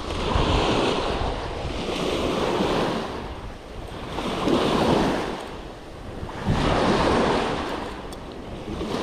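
Small waves breaking and washing up onto a sandy beach, rising and falling about every two seconds, with wind rumbling on the microphone.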